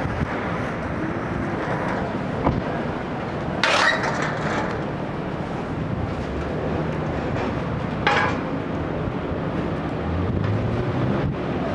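Steady city street ambience with vehicle traffic running, broken by two short bursts of hiss about four and eight seconds in.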